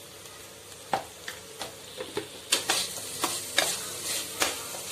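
Vegetables stir-frying in a pan with a low sizzle, while a spatula scrapes and knocks against the pan about ten times, a few strokes a second from about a second in.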